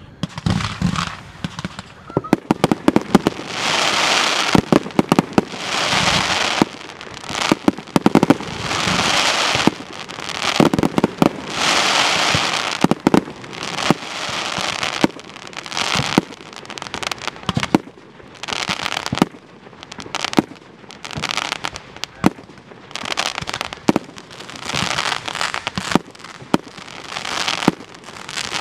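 Fireworks display going off: a rapid, irregular run of sharp bangs and pops, with bursts of hissing crackle about a second long every one to two seconds.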